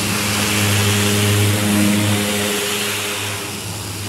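Pressure washer running, its water jet hissing against a car body panel and blasting off paint softened in an alkaline paint-removal bath, over the machine's steady motor hum. The spray hiss eases a little about three seconds in while the hum carries on.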